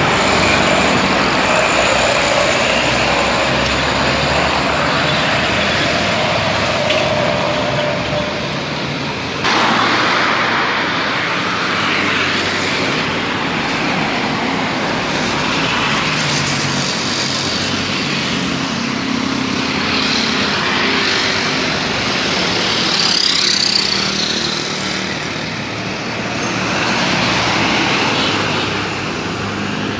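Road traffic with trucks passing close by on a highway: engines running and tyre noise throughout, the sound changing abruptly about a third of the way in.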